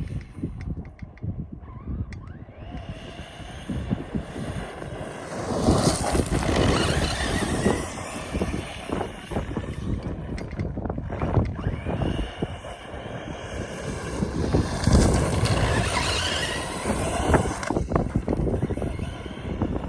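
Brushless electric motor of a DHK Maximus 1/8-scale RC truck whining as it speeds up and slows down, louder about six seconds in and again near fifteen seconds, under heavy wind buffeting on the microphone.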